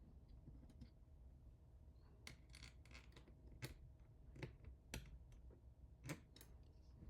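Faint, irregular clicks and light taps of small hardware being handled during hand assembly, about half a dozen sharper ones in the second half, over a low steady hum.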